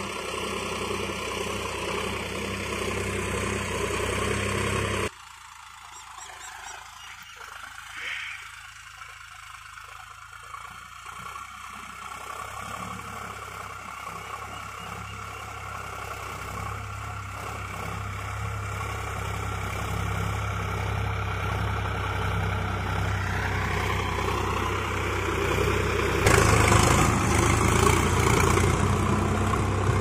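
Sonalika RX 47 4WD tractor's diesel engine running under load as it pulls a five-tine cultivator through the soil. It drops suddenly much fainter about five seconds in, then grows steadily louder as the tractor comes closer, and is loud again near the end.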